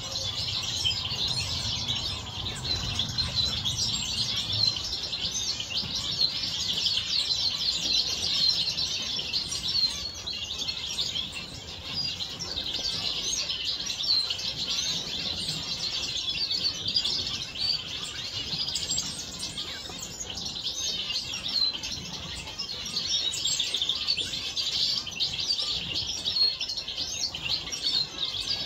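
A mixed flock of small finches chirping and calling all at once: a dense, continuous chatter of short high notes with no pause.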